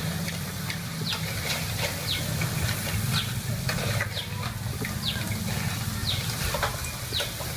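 Metal spatula stirring and scraping crab pieces around a steel wok over a portable gas stove, with the sizzle of frying and scattered clicks of the spatula against the pan. Short high chirps repeat about once a second.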